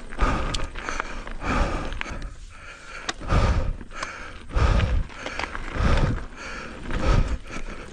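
Mountain bike being ridden on a dirt trail: tyre and trail noise with sharp clicks and rattles from the bike, and strong low puffs recurring a little more than once a second.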